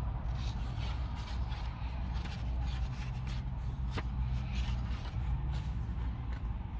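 Paper pages of a paperback journal being handled and flipped, with repeated short rustles and a sharp click about four seconds in, over a steady low rumble.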